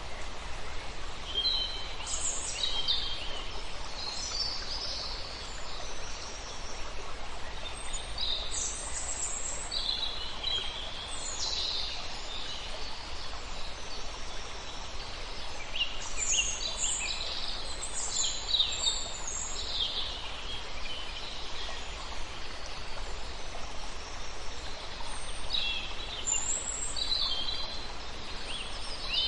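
Small birds calling: short high chirps and trills in bursts every few seconds, busiest about halfway through, over a steady background hiss.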